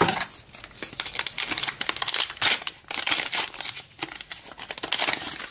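Plastic wrapper of a Team Coach trading-card pack crinkling and crackling as it is handled and torn open.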